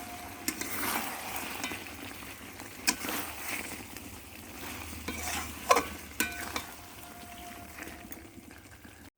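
Food sizzling as it fries in a pan while being stirred, with a few sharp clinks of a spoon or spatula against the pan.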